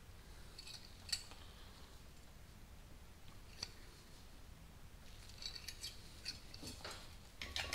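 Faint metallic clicks and creaks from a hand brake-line flaring tool as its feed screw is turned down to fold a double flare on a steel brake line: a few scattered clicks, then a cluster near the end.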